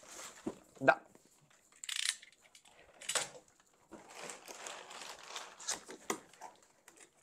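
Cardboard packaging being handled: a boxed pizza peel lifted out of a shipping carton, its box scraping and tapping against the cardboard, with short rustles of crumpled packing paper. A sharp knock about a second in.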